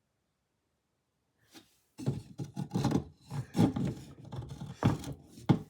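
A small wooden display easel being handled and repositioned: irregular knocks and clatters of wood with scraping and rubbing between them, starting about two seconds in.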